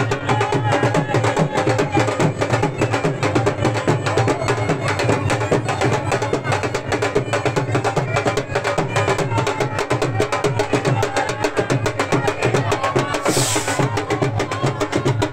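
Dhol drums beaten fast with sticks in a steady, driving dance rhythm. A brief hiss cuts in about two seconds before the end.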